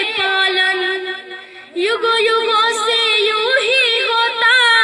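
A young girl singing into a microphone, holding drawn-out wavering notes, with a short break a little after a second in before she carries on.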